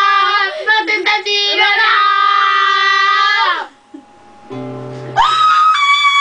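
A girl sings loudly to a strummed classical guitar, holding one long note for about three and a half seconds. After a short break a guitar chord rings, then a high, shrill held note starts about five seconds in.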